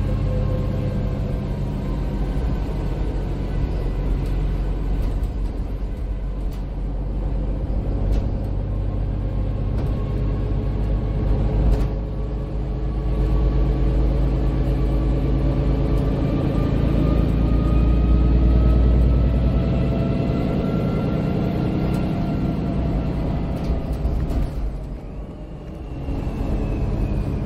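Inside a MAN Lion's City 12C EfficientHybrid city bus on the move: a steady low drone of the diesel engine and road rumble, with whining drivetrain tones that rise slowly in pitch through the middle as the bus gathers speed, and a higher tone falling away near the end as it eases off.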